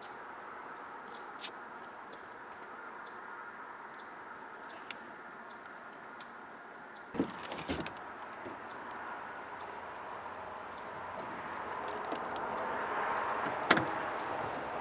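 Small parts being handled: scattered light clicks and taps of screws with rubber washers being fitted, with a cluster of clicks about halfway through and one sharp click near the end. A steady, evenly pulsing insect trill runs underneath.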